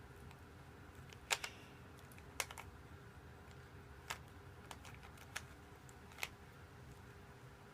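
Plastic Rubik's cube being twisted by hand: scattered, irregular clicks and clacks as its layers turn, about eight in all, the loudest about a second in.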